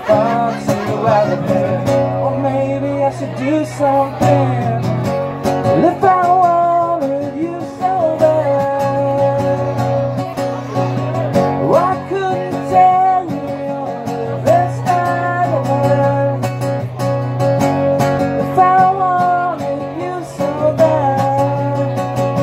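A man singing while strumming an acoustic guitar, the guitar keeping a steady rhythm under his voice.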